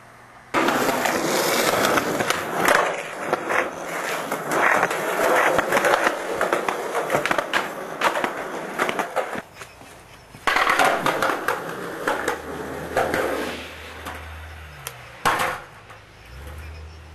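Skateboard wheels rolling fast over a concrete sidewalk, clicking over the pavement joints. The rolling starts abruptly about half a second in, breaks off for about a second near the middle, and resumes. A single sharp clack of a board hitting the pavement comes near the end.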